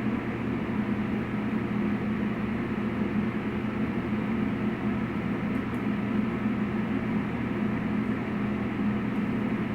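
Steady mechanical hum of kitchen ventilation, a constant drone with a low pitched tone underneath.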